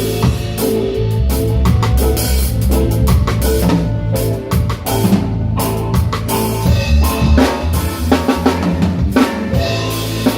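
Live reggae band playing, the drum kit up front with kick drum and snare hits over a deep bass line and held keyboard or guitar notes.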